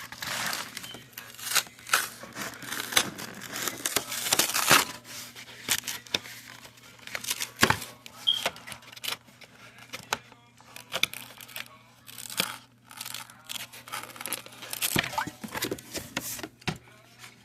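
Snack or cardboard packaging being torn open and crinkled: a long run of crackling tears and rustles, with brief pauses between.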